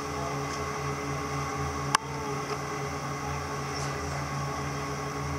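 Boat engine running steadily under way, a low, even hum with a constant pitch, heard from on board. A single sharp click about two seconds in.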